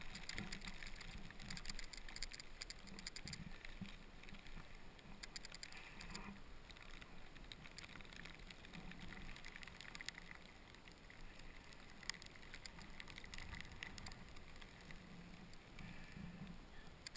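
Snowboard sliding down a snowy slope: a faint steady hiss of the board on the snow, with scattered small crackles.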